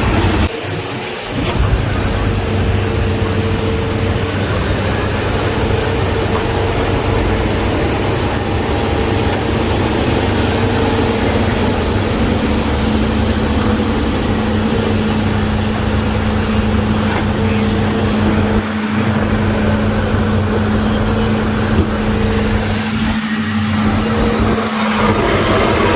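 Heavy diesel engine running steadily at a constant speed, with an even hum and a brief drop in level about a second in.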